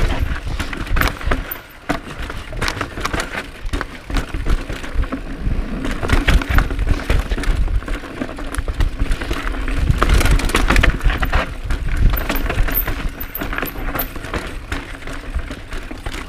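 Cannondale Claymore full-suspension mountain bike riding down a rocky, rooty singletrack: tyres, chain and suspension clatter and knock without let-up over the rough ground. Wind buffets the chest-mounted microphone with a low rumble.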